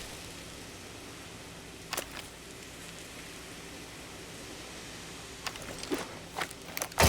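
Faint steady hiss with one click about two seconds in and several quick clicks near the end.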